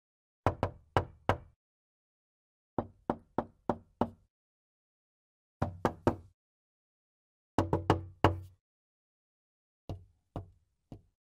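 Foley-recorded knocking sound effects, played one after another: five groups of three to five quick knocks, about two to three seconds apart, with the last group fainter. They are the knocks performed for the neutral emotion in the recorded dataset.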